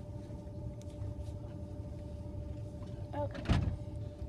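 Train carriage running noise: a steady low rumble with a faint steady whine. About three and a half seconds in, a loud brief rub or thump as a hand handles the phone right at its microphone.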